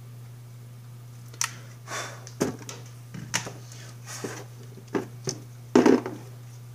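Small tools and parts being handled on a workbench: a string of short clicks, taps and rustles, the loudest about six seconds in, over a steady low hum.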